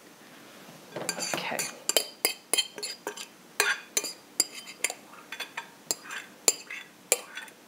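A metal utensil knocking and scraping against a glass mixing bowl while cornbread stuffing is scraped out of it, in many irregular sharp clinks.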